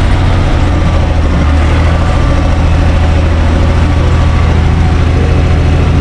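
UTB 445 tractor's diesel engine running steadily, heard from inside the cab, with a strong low hum, as the tractor works the field with its rotary tiller.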